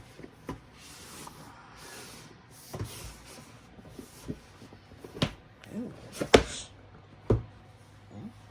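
Cardboard keyboard box being opened by hand: a stretch of rubbing and sliding of cardboard, then several sharp taps and knocks of the box and its lid, the loudest about six seconds in.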